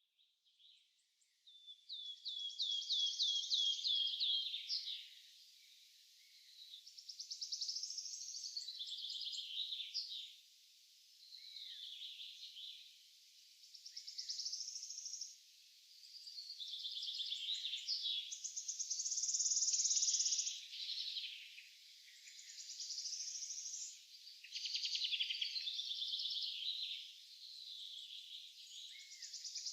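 Songbirds singing: high phrases of rapid trills and chirps, each a few seconds long, one after another with short pauses between.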